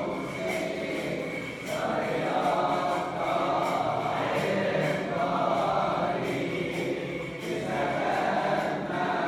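A choir chanting in long held phrases, a new phrase every second or so.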